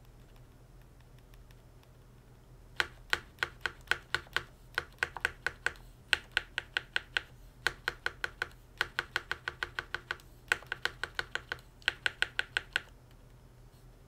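Spacebar of a Mountain Everest Max mechanical keyboard, with a lubed Cherry Red switch and lubed, clipped Cherry stabilizers, pressed repeatedly. It gives sharp clacks about three or four a second in short runs with brief pauses, starting about three seconds in.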